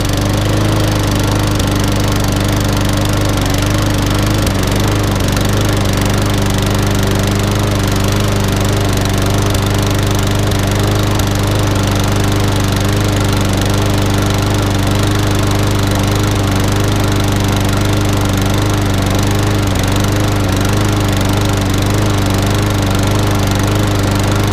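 Briggs & Stratton lawnmower engine running steadily just after starting, burning off excess oil that had flooded its carburettor when the mower was tipped on its side, so it smokes from the exhaust.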